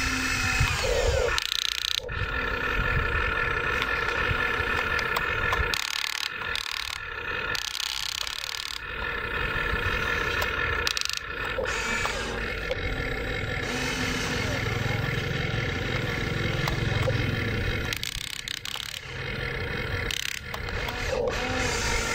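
Huina RC excavator's electric motors and gearboxes whining and rattling as its arm and bucket dig and swing. The whine stops and starts again several times as the controls are worked.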